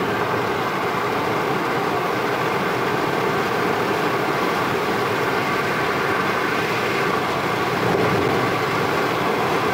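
Steady road and engine noise inside a Holden Cruze cruising at about 90 km/h. The 2-litre turbo-diesel is pulling around 1,900 rpm in fifth gear of its 6T40 automatic.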